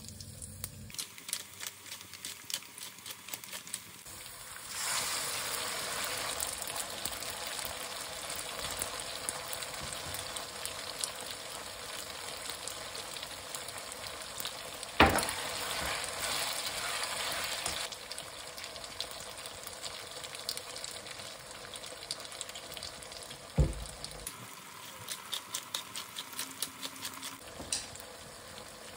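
Food sizzling and crackling in a frying pan, louder from about five seconds in until around eighteen seconds. There is a sharp knock near the middle and another a few seconds before the end.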